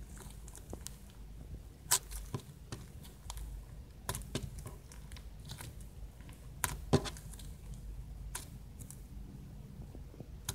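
Blue slime studded with foam beads being squeezed, pinched and stretched by hand, giving scattered small crackles and pops. The two sharpest pops come about two seconds in and about seven seconds in.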